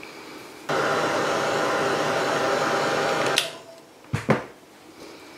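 Handheld heat embossing gun switched on, blowing steadily with a faint whine for nearly three seconds, then switched off, melting embossing powder on inked stars. A short knock follows about four seconds in.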